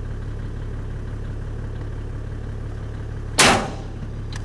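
Steady low hum of an idling engine, then about three and a half seconds in a single loud rifle shot at a feral camel that rings out and fades over about half a second.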